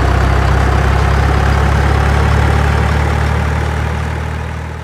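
Heavy truck engine idling with a steady low drone, fading gradually over the last couple of seconds.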